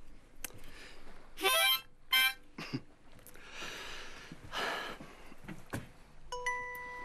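Harmonica played: a couple of short notes, a breathy stretch, then a single note held steadily from near the end.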